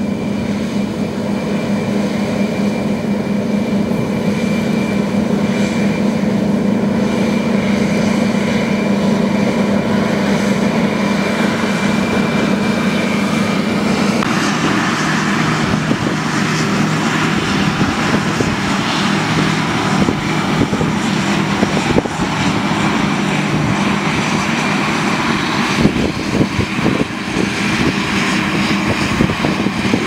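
John Deere combine harvester running as it cuts wheat, a steady diesel engine drone. About halfway through the sound changes abruptly to a rougher, noisier rumble with scattered knocks and rattles.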